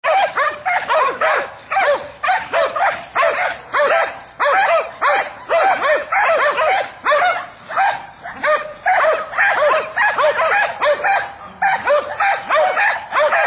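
Dogs barking and yipping in a steady stream, short high yaps about two to three a second with no let-up.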